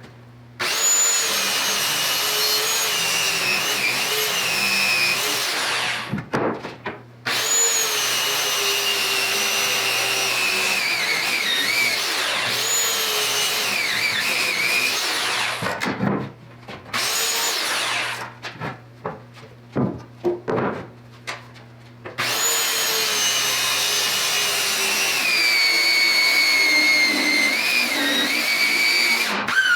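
Circular saw cutting black walnut slab in several long passes, its motor whine sagging and wavering under load during each cut. Between passes come short pauses with a few knocks.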